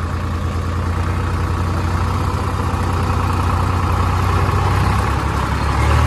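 Tractor diesel engine running as the tractor drives along, a steady low drone that grows gradually louder.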